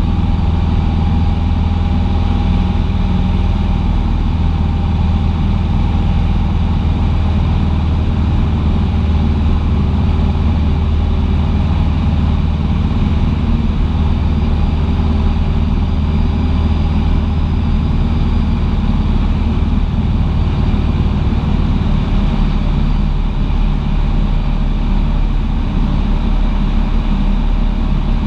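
Cessna 150's four-cylinder piston engine and propeller running steadily in a continuous loud drone.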